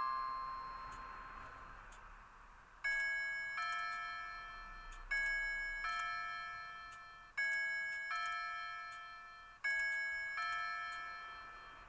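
Citizen Karakuri KC2610-2 clock chiming: the last note of its melody rings out and fades, then four two-note ding-dong chime strokes follow at an even pace, about two seconds apart, each ringing and fading.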